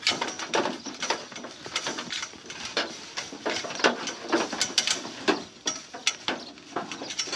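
Goats eating dry old bread from a hand at a pen fence: a quick, irregular run of crunches and clicks.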